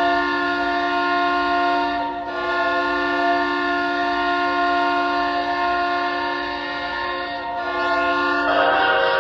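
Hockey goal horn, a train-style air-horn chord, sounding in one long steady blast with a brief dip about two seconds in. It gives way to music near the end.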